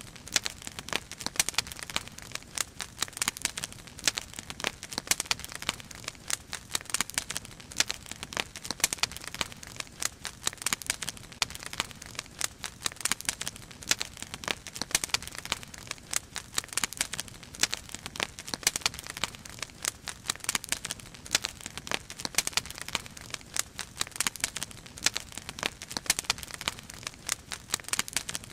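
Wood fire burning in a dragon-shaped metal fire basket, crackling steadily with many irregular sharp snaps and pops.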